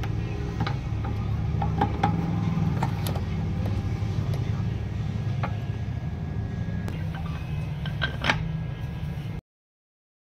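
Light metallic clicks and clinks of a timing chain and camshaft sprocket being handled on a Toyota ZR-series cylinder head, over a steady low rumble. The sound cuts off abruptly near the end.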